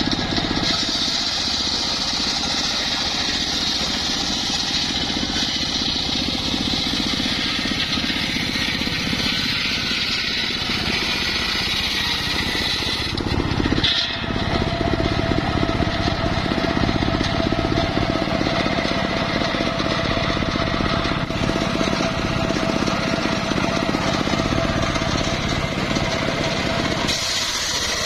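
Homemade circular sawmill ripping a log lengthwise: the large blade cuts through the wood over the steady running of its driving motor. A steady whine holds through the second half of the cut.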